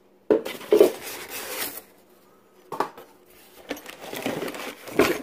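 Foam packing and a cardboard box rustling and scraping as a garbage disposal is handled out of its shipping box, with a few short knocks and a sharp one near the end.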